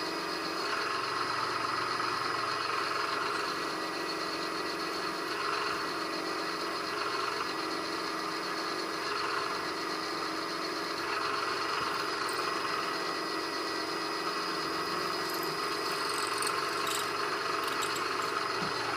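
A metalworking machine tool running steadily, a constant whine with several steady tones, and a few light clicks near the end.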